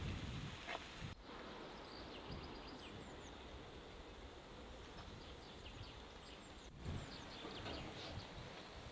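Faint outdoor ambience with small birds chirping now and then, and a couple of soft knocks, one near the start and one near the end.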